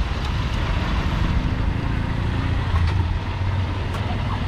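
Street traffic: motor vehicles running and passing, a steady low rumble.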